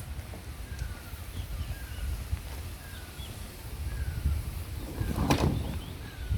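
Birds calling outdoors, a series of short falling chirps repeated about once a second over a steady low rumble, with a brief loud rustle or knock about five seconds in.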